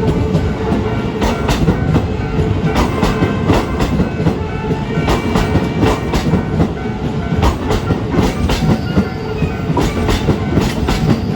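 Loud, continuous rumble with many sharp, irregular clacks.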